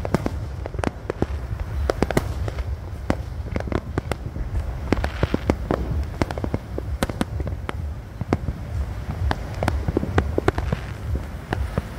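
Fireworks display: aerial shells bursting in an irregular run of sharp bangs and crackles, several a second, over a steady low rumble.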